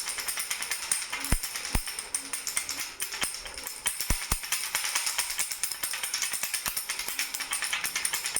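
Baby rattle shaken continuously, a fast jingling rattle with a few low knocks near the middle.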